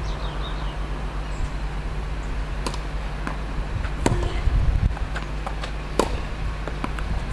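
Tennis rally: sharp pops of the ball struck by rackets and bouncing on the court. The loudest come about two and a half, four and six seconds in, with fainter ones between, over a steady low wind rumble on the microphone.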